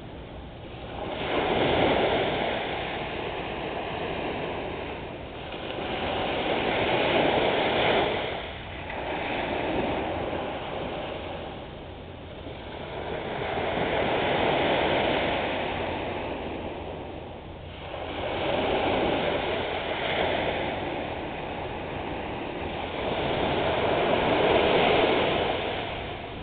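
Small waves breaking and washing up a sandy beach, the surf swelling and easing roughly every five to six seconds.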